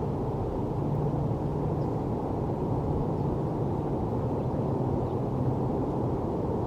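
Steady low rumble of distant city traffic, with a low hum running under it. A few faint, high, short bird chirps come through now and then.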